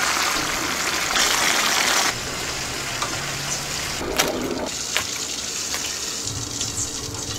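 Whole spiny lobsters deep-frying in a wok of hot oil: a steady hissing sizzle, loudest for the first two seconds and then softer, with a couple of sharp pops about four and five seconds in. The lobsters still carry water that was not fully drained off, which makes the oil spit.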